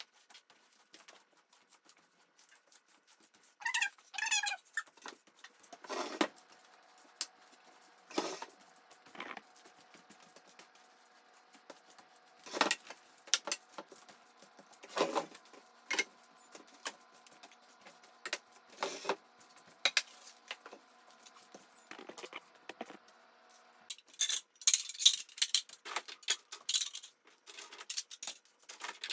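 Broom sweeping a hard kitchen floor, a scattered swish every couple of seconds, with a brief high warbling sound about four seconds in. Near the end comes a run of dishes and cutlery clattering as a dishwasher is loaded.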